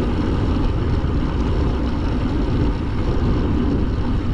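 Wind rushing over the microphone of a camera on a moving road bicycle: a steady, low rumbling rush, with tyre and road noise mixed in.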